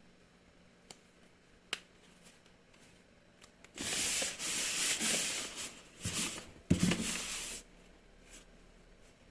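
Handling noises: two light clicks, then about four seconds of rustling and rubbing with a couple of knocks.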